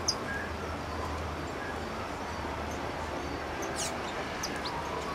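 Small birds calling: a sharp, short high chirp just after the start and two quick falling whistles about four seconds in, over a steady low hum.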